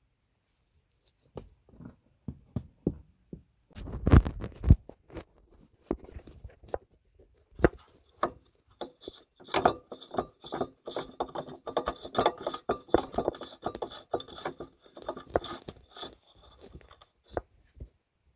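Hand work on metal inside a steel chassis rail: irregular scraping, clicks and knocks of tools and parts on steel. The loudest sounds are two heavy knocks about four seconds in, followed by a long run of rapid clicking and scraping.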